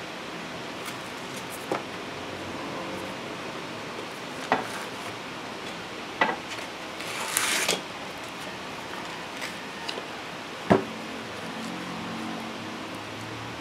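Handling noises from fitting a sandpaper sheet to an orbital sander's base pad, with the motor off: a few sharp, separate clicks from the wire paper clamp and plastic body, and a short scratchy rustle of sandpaper about seven seconds in.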